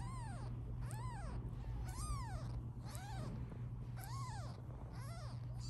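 A 16-day-old British Shorthair kitten mewing repeatedly, about once a second. Each thin, high mew rises and falls in pitch. A steady low hum runs underneath.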